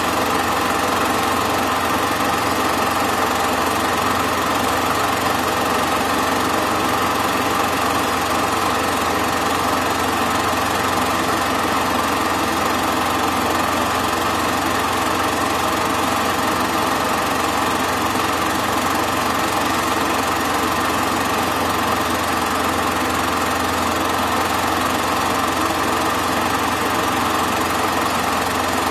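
Super 8 film projector running, a steady mechanical whir.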